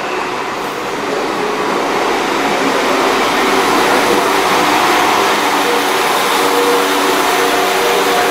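Two coupled Class 172 Turbostar diesel multiple units running into the platform past the microphone. The engine and running noise grows louder over the first couple of seconds, then holds steady, with a hum of several steady tones in the second half.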